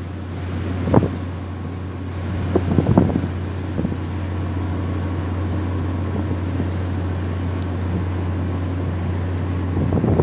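Steady low machinery hum from the moored frigate F362 Peter Willemoes, a Danish Navy Iver Huitfeldt-class ship, with a few gusts of wind buffeting the microphone.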